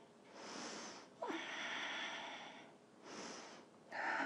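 A woman breathing audibly while holding a deep yoga stretch: two rounds of a short inhale followed by a longer, heavier exhale.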